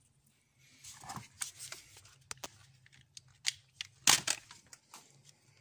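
Handling noise: scattered, irregular clicks and rustles of objects being moved and fumbled with, with one sharper knock about four seconds in.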